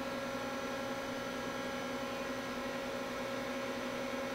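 Steady hum of the powered-up Daewoo Puma 230MB CNC lathe standing idle: several unchanging tones over a low hiss, with no cutting or axis movement.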